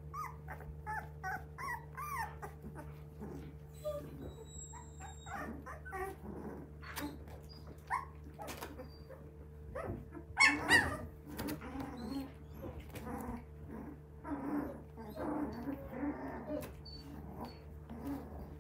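A litter of three-week-old Border Collie puppies whimpering and squeaking as they crawl over one another, with a quick run of high whimpers in the first few seconds and one louder cry about ten seconds in.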